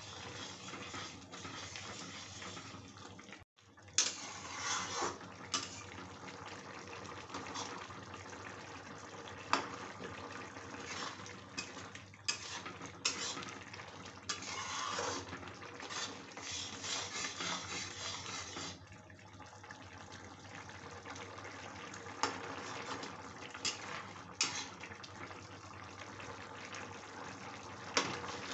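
Metal spatula stirring a thin potato and soya-chunk curry in a metal kadhai: the gravy sloshes while the spatula scrapes and knocks against the pan, with sharp clicks now and then.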